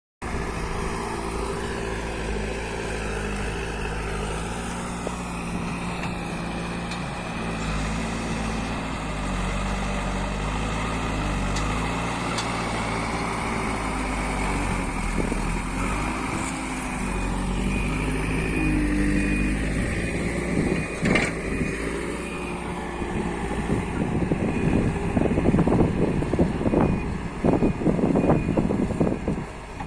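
JCB backhoe loader's diesel engine working under load, its pitch rising and falling as the revs change. From about two-thirds of the way through, irregular knocks and clanks come in over the engine and get louder toward the end.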